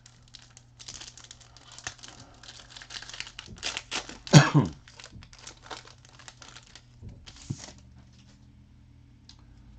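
Foil wrapper of a 2012-13 Panini Crusade basketball card pack crinkling as it is torn open by hand, with one loud rip about halfway through that falls in pitch.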